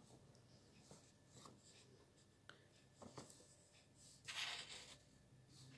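Faint rustling and a few light taps of clothes being handled and moved aside, with one short, louder swish about four seconds in.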